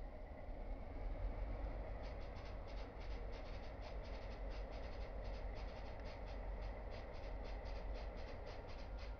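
Low, steady rumble of CP Rail GP9U diesel locomotives creeping past at slow speed. From about two seconds in, a fast, irregular scratchy clicking runs over it.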